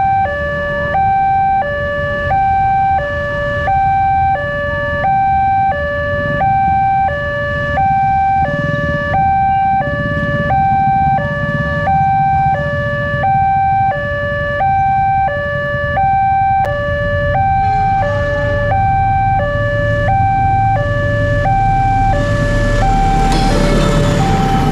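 Railway level-crossing warning alarm sounding an electronic two-tone chime that alternates high and low, each tone held about three-quarters of a second, warning of an approaching train. Near the end the rumble of a diesel locomotive rises as it reaches the crossing.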